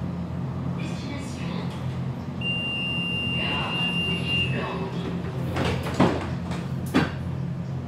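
Breda VLC tram at a stop: a steady high warning tone sounds for about two seconds, then the sliding doors close, ending in two knocks about a second apart. A steady low hum of the tram's equipment runs underneath.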